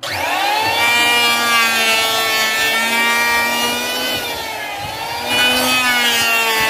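Hitachi (HiKOKI) electric hand planer switched on, its motor spinning up with a rising whine and settling into a loud, steady high whine as it is pushed along a wooden board. The pitch dips slightly about four seconds in and climbs back, and the sound swells louder near the end.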